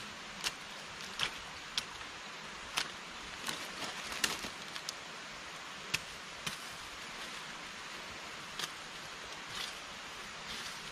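A machete knocking and scraping against a thin wooden stick: irregular sharp cuts, about a dozen spread out, over a steady hiss.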